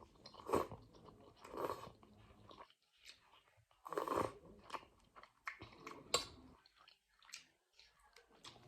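Close mouth sounds of a person eating vegetable noodle soup: chewing and biting with some crunching. The sounds come in short, irregular bursts with brief quiet pauses.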